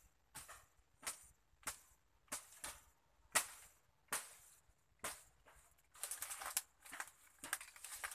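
A mandau (machete) chopping through wet undergrowth: sharp, separate cuts about every half second to second, with a denser stretch of crackling and rustling stems about six seconds in.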